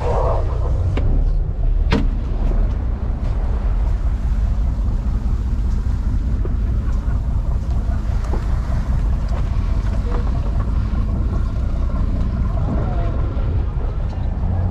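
A fishing boat's engine running with a steady low rumble, with wind buffeting the microphone. A single sharp knock about two seconds in.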